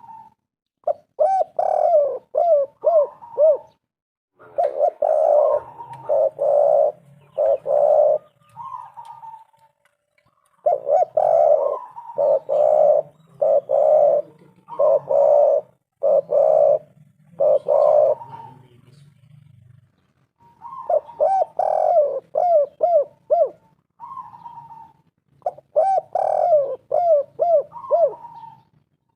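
Spotted dove (tekukur) cooing: phrases of quick, arching coo notes and longer coos, repeated in bursts of a few seconds with short pauses between.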